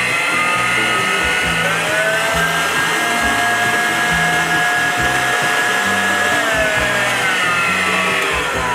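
Oxone OX-855 stand mixer's motor running with the beater turning in an empty stainless bowl, a steady whine. The pitch steps up about two seconds in, holds, then steps back down from about six and a half seconds in as the motor speed is changed.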